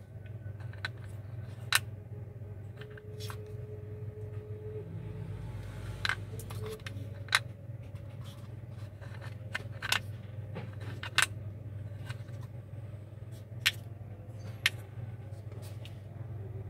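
Small carbide milling inserts and their hard plastic case clicking and tapping as they are handled, with about seven sharp clicks scattered through, over a steady low hum.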